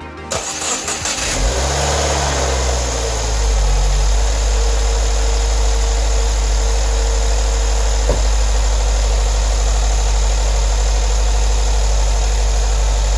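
2015 Subaru WRX's turbocharged flat-four engine cranked by the starter, catching about a second and a half in, flaring up in revs and then settling into a steady fast idle as it warms up on fresh oil. A single knock about eight seconds in, the car's door shutting.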